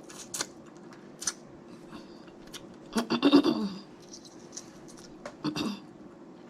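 Snow crab leg shells being cracked open: scattered sharp clicks, then a quick rattle of snapping and crunching about three seconds in, the loudest part, and another short burst near the end.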